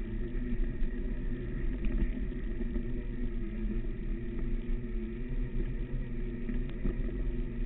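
Segway x2's electric drive humming steadily as it rolls over rough dirt, over a heavy low rumble, with a few faint knocks from the ground.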